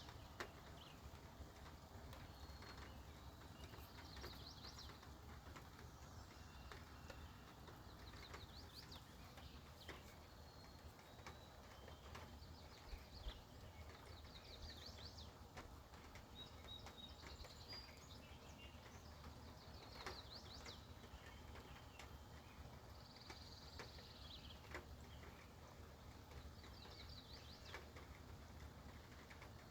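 Faint songbird song: a short, high phrase repeated every few seconds, over a low steady outdoor background with a few scattered clicks.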